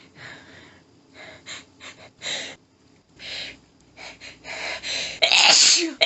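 A woman's sharp, hitching gasps and panting breaths as she builds up to a sneeze during an allergic sneezing fit, growing louder, then a loud, strong sneeze near the end.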